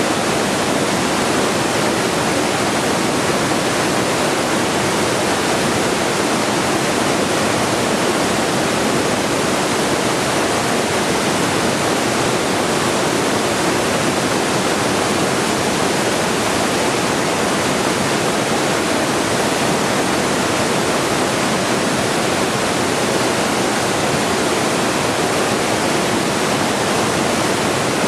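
Steady white noise: an even, unchanging hiss with no breaks.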